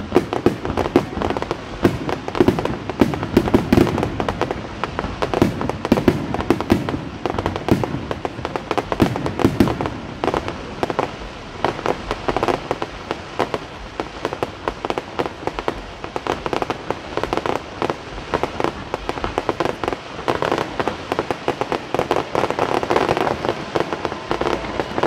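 Fireworks display: a dense, continuous barrage of many small shells and rising comets bursting, rapid overlapping pops and crackles with no pause.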